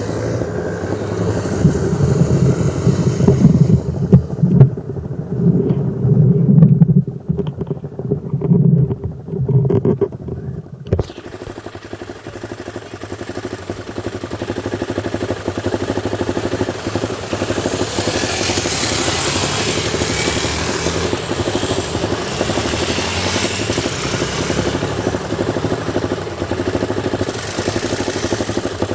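Off-road motorcycle engines running and revving, with the level rising and falling, as the bikes pull away. About eleven seconds in, the sound changes abruptly to a steadier engine drone with a hiss over it.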